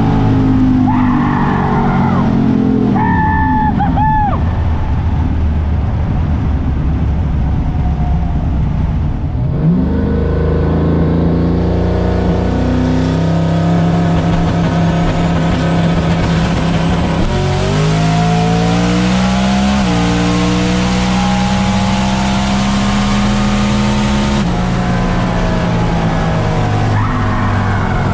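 Turbocharged small-block Ford V8 of a Fox-body Mustang drag car running, heard from inside the cabin. The revs climb about nine seconds in and again around seventeen seconds in, are held up for a few seconds, then drop back.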